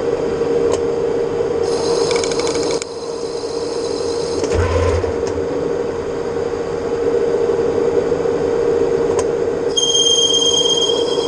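Metal lathe running while turning stainless steel: a steady machine hum, a short burst of high-pitched cutting noise about two seconds in, and a steady high whine from the cut starting near the end.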